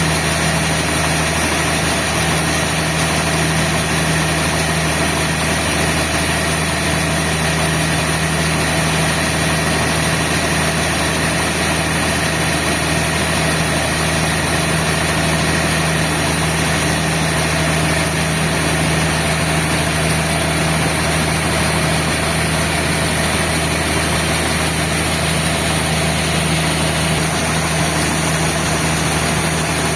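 Sawmill machinery running with a steady, unchanging engine-like hum and drone.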